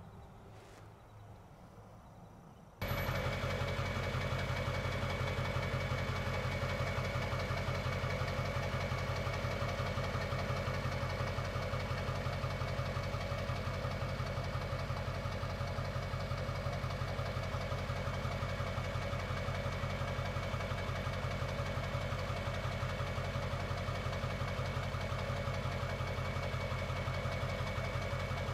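A vehicle engine idling steadily with a fast, even low pulse. It cuts in suddenly about three seconds in, after a quiet opening.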